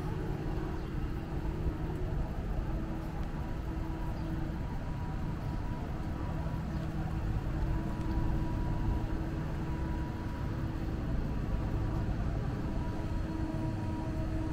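Street traffic at a town intersection: cars and pickup trucks running and passing, a steady low rumble with a constant hum over it.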